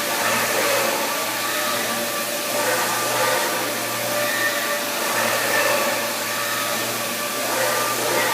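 Electric power sander running steadily against a composite part, a continuous motor whine over the hiss of abrasive on the surface, with slight rises and dips in level as the pressure changes.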